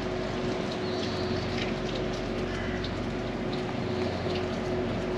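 Steady mechanical drone: a constant low hum with a held tone, over a wash of background noise.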